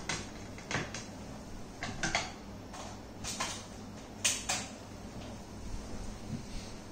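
Handling noise: a scattered run of light clicks, knocks and rustles as hands move the mixer grinder's parts and packing about, most of them in the first five seconds.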